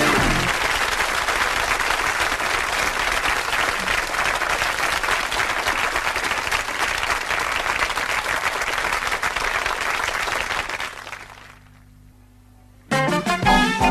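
Studio audience applauding steadily, then fading out about eleven seconds in. After a moment of low hum, music starts near the end.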